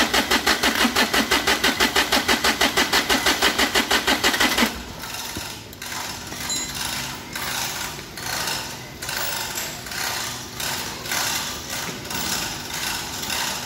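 Daihatsu Charade three-cylinder turbo-diesel engine being cranked by its starter motor: a loud, even chugging of about six compression strokes a second for about five seconds, then the cranking stops suddenly and a quieter, uneven rumble follows.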